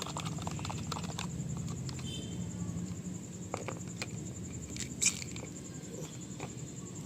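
Medicine powder being stirred into water in a small container: a run of light clicks and scrapes from the stirring, thickest in the first second, then sparser, with one sharper click about five seconds in. A low steady hum runs underneath.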